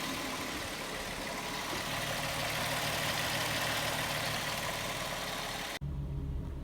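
Volkswagen 12-valve VR6 engine idling steadily on freshly changed oil. Near the end the sound cuts off abruptly to a lower, duller hum of the engine still idling.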